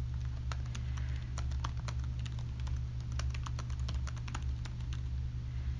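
Typing on a computer keyboard: quick, irregular keystrokes, several a second, entering a short sentence. A steady low hum runs underneath.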